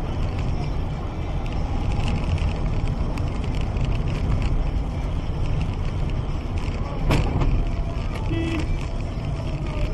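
Steady road and engine noise heard from inside a car's cabin driving at highway speed, with one sharp knock about seven seconds in.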